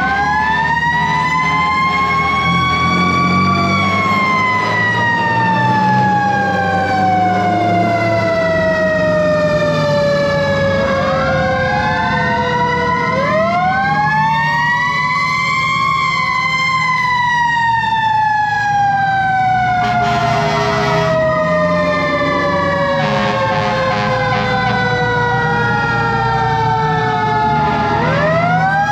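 Several fire-truck sirens sounding together, each winding up and then slowly winding down over many seconds, overlapping one another, over the steady low running of a diesel fire-engine motor.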